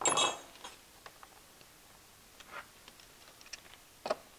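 Metal combination wrenches clinking as they are set down on a table, with a short metallic ring. Then faint scattered clicks of parts being handled, and one sharp click near the end.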